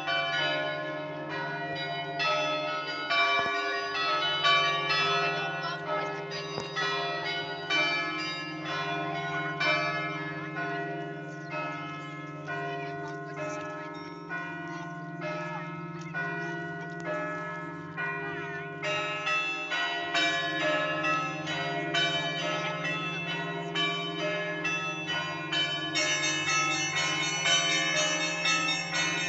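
Russian Orthodox cathedral bells being rung: many smaller bells struck in quick rhythmic patterns over the steady hum of a deep bell. The higher bells change their pattern twice, about two-thirds through and near the end.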